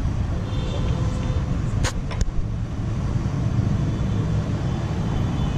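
Steady low rumble of background road traffic, with two short sharp clicks about two seconds in from a spanner working on the motorcycle's timing gears.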